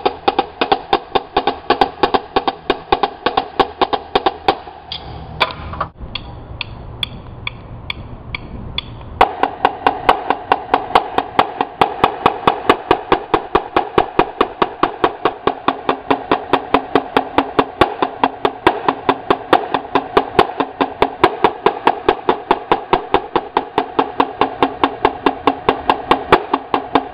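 Two marching snare drums played together with sticks: rapid, crisp, ringing strokes in a fast rhythm. From about five to nine seconds in the playing drops to a softer, sparser passage, then the full, loud strokes resume.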